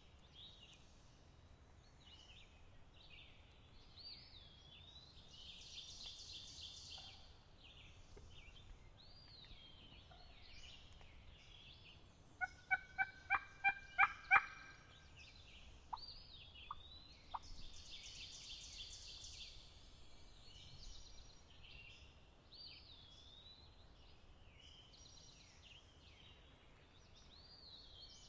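Wild turkey calling: a loud run of about eight quick notes over two seconds midway through, then three single short notes, with songbirds singing steadily behind.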